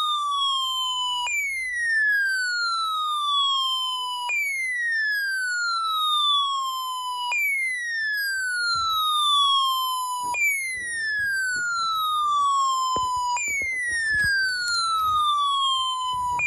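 Electronic siren alert of a weather alert receiver going off for a Required Weekly Test. A single pitched tone sweeps down from high to low over about three seconds, then jumps back up and repeats steadily. A few faint knocks come in the second half.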